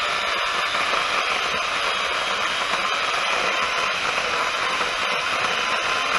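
Radley battery-powered chainsaw running steadily under load while cutting through a limb, its electric motor whine and chain noise continuous. It is cutting slower than usual, which the owner puts down to a chain not yet sharpened after three days' use.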